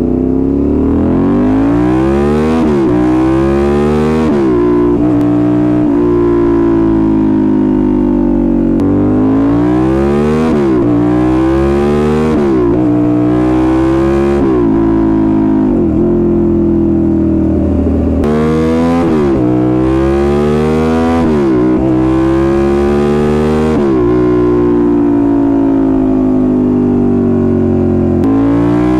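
2008 Suzuki SV650S's 90-degree V-twin engine pulling through the gears: the revs climb quickly and drop at each upshift, several shifts in a row. This happens in three bursts of acceleration, with steady cruising between them, and it starts to climb again near the end.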